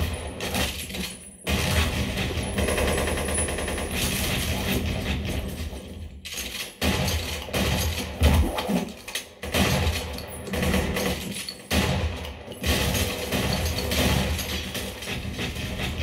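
Film-soundtrack gunfire, rapid automatic fire with shattering debris, played through a Klipsch RP-450C center-channel speaker and picked up in the room, with a few brief lulls.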